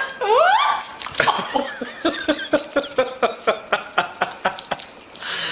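Puppy eating from a plate, squealing once with a rising pitch, then making short squeaky grunts, about five a second.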